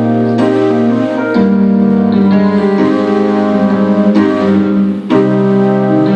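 Electronic keyboard with a piano sound playing sustained chords that change every second or so, with a brief break about five seconds in.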